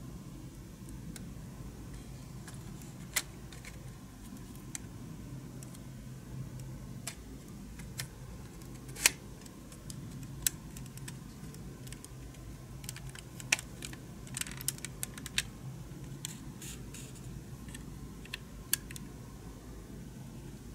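Scattered small clicks and taps of a scale model car's parts being handled and fitted together, the sharpest about halfway through and a quick cluster a little later, over a steady low hum.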